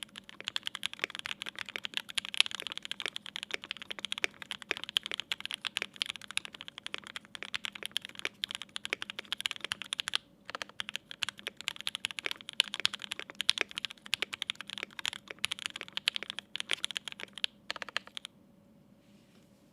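Fast typing on a Mode Eighty mechanical keyboard with lubed 43 Studio Toy switches on an FR4 plate and GMK keycaps: a dense run of keystroke clicks. It breaks briefly about halfway and stops a second or two before the end.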